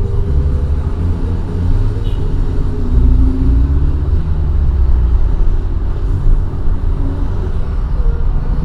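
2013 Daihatsu Xenia VVT-i on the move: a steady low engine and road rumble, with the engine note shifting slightly in pitch.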